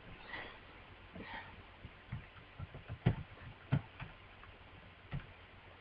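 Faint room tone with a handful of short, irregular clicks or taps, the clearest two a little past the middle.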